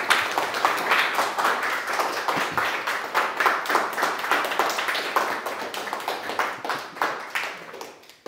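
A small audience applauding, many hands clapping at once, fading out near the end.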